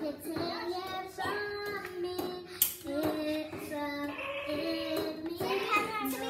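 A child singing a melody in held notes that step up and down, with a single sharp knock about two and a half seconds in.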